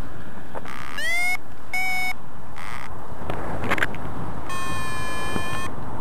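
Paragliding variometer beeping its climb tone over a steady rush of wind on the microphone: a short upward chirp about a second in, a brief beep just after, then a longer steady higher tone past the middle.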